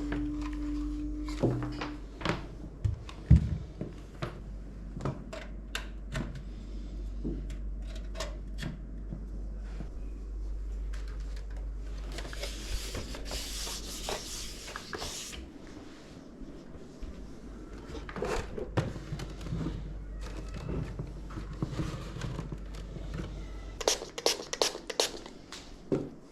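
Hands handling PC components and case panels: scattered clicks, taps and knocks of plastic and metal. There is a short rustle partway through and a quick run of clicks near the end.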